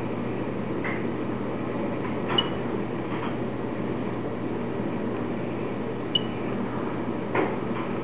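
Steady machine hum and noise, broken by a few short clicks; two of the clicks carry a brief high beep.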